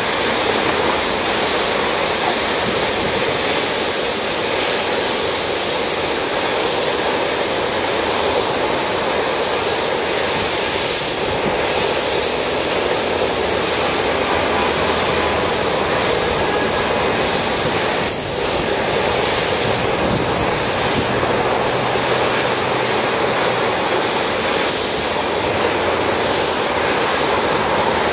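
Jet engines of an Airbus A340-600 taxiing at low thrust: a loud, steady rush with a thin whine. A single click about two-thirds of the way through.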